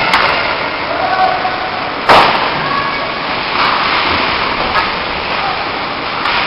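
Ice hockey game heard from the stands of a large, echoing rink: a steady wash of play and arena noise with faint scattered voices, and one sharp knock about two seconds in.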